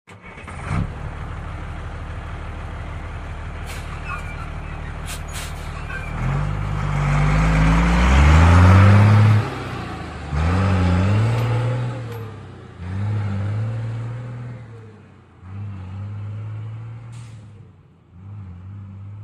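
An engine idling steadily, then revved several times: the first rev climbs for about three seconds and cuts off sharply, and four shorter revs follow, each rising and dropping back. A few sharp clicks come shortly before the first rev.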